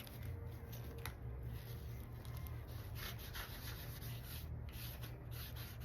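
Soft, irregular rubbing of an applicator working black shoe dye into the worn leather handle of a handbag, over a low steady hum.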